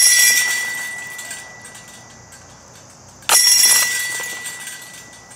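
Discs hitting the steel chains of a Hive cross-chain disc golf basket: the chains jangle with a clear ringing tone that fades over about two seconds, then a second disc hits about three seconds in and the chains jangle and ring out again.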